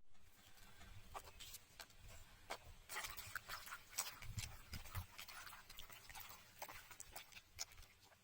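Irregular light knocks and clicks, some close together and some spaced out, over a faint low rumble.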